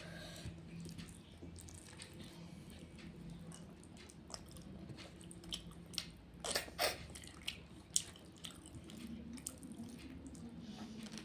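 Close-up eating sounds: chewing with scattered wet mouth clicks and smacks. A few sharper, louder clicks come a little past halfway.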